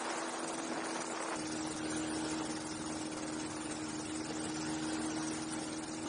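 Rotax 582 two-stroke engine of a pusher ultralight running steadily at low power while the aircraft taxis, heard close up from the airframe. Its low rumble fills out a little just over a second in.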